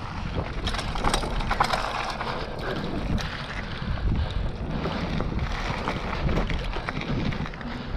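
Mountain bike riding fast down a gravelly dirt trail: steady wind rush on the camera microphone, with the tyres crunching over loose stones and the bike rattling over bumps.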